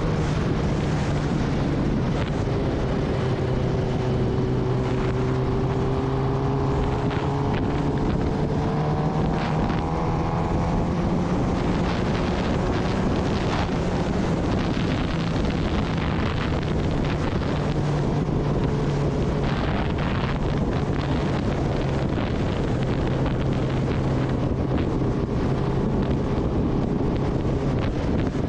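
Kawasaki Ninja ZX-10R's inline-four engine running steadily while riding, its pitch drifting only a little, with wind noise on the microphone.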